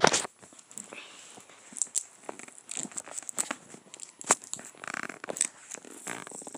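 Fingernails picking and scratching at packing tape on a microphone box, with short peeling and rustling sounds, the loudest just at the start.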